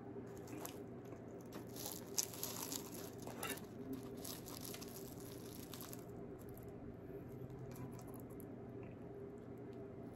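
Flaky croissant crust crackling and tearing as it is pulled apart by hand: faint, crisp crackles that die away about six seconds in.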